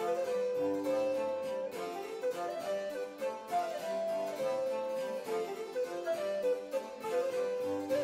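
Background music: a keyboard melody, its notes stepping up and down over a steady accompaniment.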